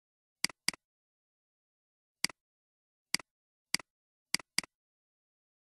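Computer mouse clicks: seven short, sharp clicks in about four seconds, two of them in quick pairs near the start and near the end, with dead silence between.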